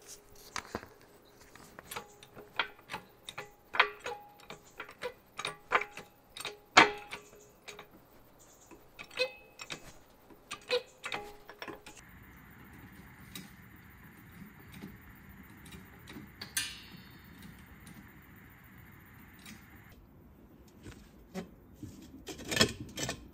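Car jack being worked to lift an SUV: a run of irregular metallic clicks, about one or two a second. After a stretch of faint steady noise, more clicks come near the end.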